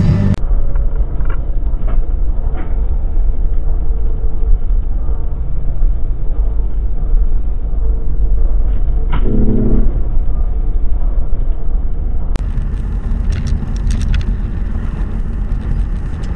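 Steady low road and engine rumble heard from inside a moving car, picked up by a dashcam. About nine seconds in there is a brief pitched sound.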